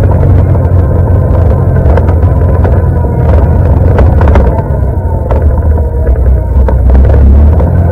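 ATV engine running hard while riding. It eases off a little about halfway and picks up again near the end.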